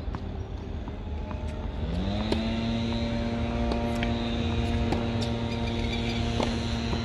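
A motor or engine spins up about two seconds in and then runs at a steady pitch, over a low rumble.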